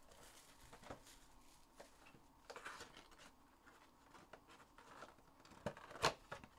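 Hands handling a sealed trading-card box and its packaging: faint rustling and small clicks and taps, with two sharper knocks near the end.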